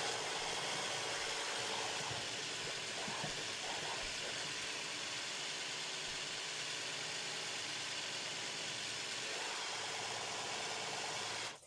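Hand blender with a chopper bowl attachment running steadily, mincing herring.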